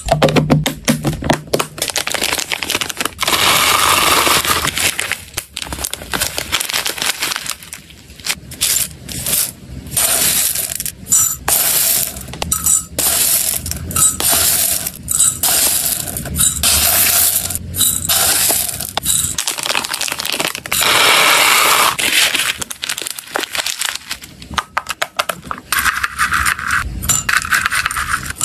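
Dry hamster food being scooped and poured into a glass jug and plastic boxes: loose dried herbs, small black seeds and chopped dried stems rattling and pattering against glass, with scoop clinks and taps between the pours.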